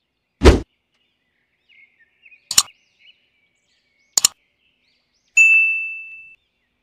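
Sound effects for a like-and-subscribe animation: a short low thump, then a single sharp click and a quick double click as the like and subscribe buttons are pressed, then a bell-like ding that rings out for about a second. Faint bird chirps sound in the background.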